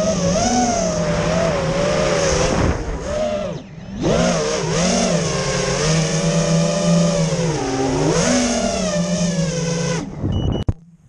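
ImpulseRC Helix ZX6 racing quadcopter's brushless motors and propellers whining, the pitch rising and falling with the throttle. The sound drops away briefly about three and a half seconds in, dips again near eight seconds, and cuts off about ten seconds in.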